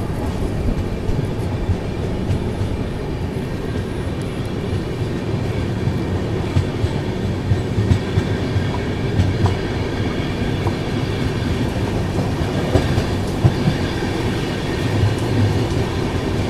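Rolling noise of a double-decker chair-car train heard from inside the coach: a steady rumble of wheels on rails with occasional clacks over rail joints.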